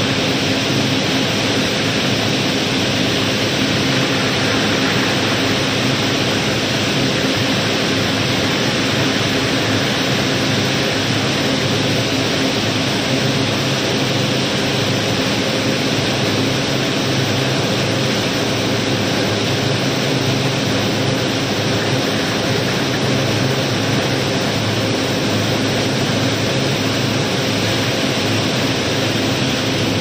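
Gravel pouring steadily through a barge's unloading chute, a continuous rushing hiss, over a steady hum of machinery.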